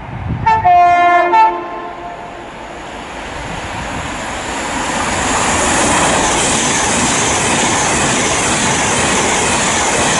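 Class 390 Pendolino electric train sounding a brief two-tone horn about half a second in, then the rush of the train passing through the station at speed, building up and then holding steady and loud.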